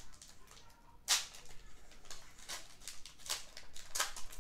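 Crinkling of a foil booster-pack wrapper and trading cards being handled: one sharp rustle about a second in, then a few shorter crisp ones.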